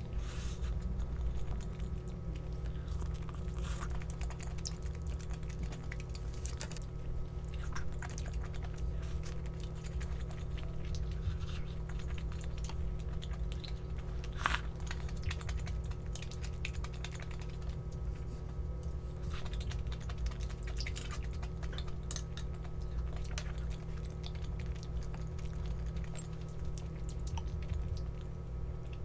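A person eating: chewing, with scattered small clicks and taps, over a steady low hum.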